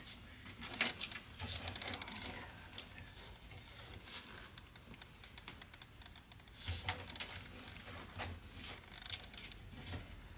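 Faint rustling and scattered clicks and knocks as a car seat's leather cover is pulled over the foam and tucked into the seat's plastic frame, from a 2011 Cadillac Escalade front seat being reassembled.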